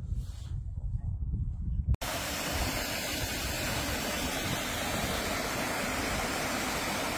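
About two seconds of low, uneven rumble, then an abrupt cut to the steady, full rush of a waterfall.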